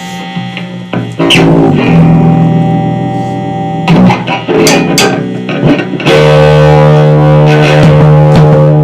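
Lo-fi garage noise-rock: distorted electric guitar and bass playing loud held chords, with a few sharp drum or cymbal hits. The sound gets louder about a second in and again around six seconds in.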